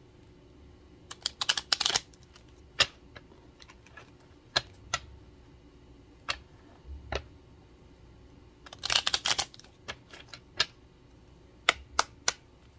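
A deck of cards being shuffled by hand: scattered sharp clicks and snaps of cards against each other, with two quick flurries of card slaps about a second and a half in and around nine seconds in.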